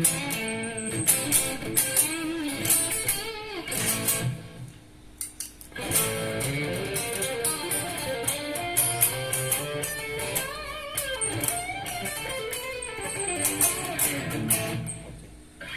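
Electric guitar played through a NUX MG-30 multi-effects processor: single-note melodic phrases with bent notes, pausing briefly about four and a half seconds in and again near the end.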